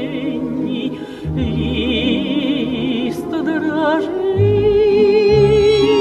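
Solo singing in an operatic style with wide vibrato, over instrumental accompaniment with repeating low notes. About four seconds in the voice settles on a long held note.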